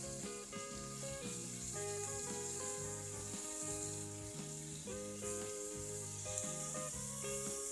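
Chicken şiş skewers sizzling on an electric grill plate, a steady hiss, with background music playing over it.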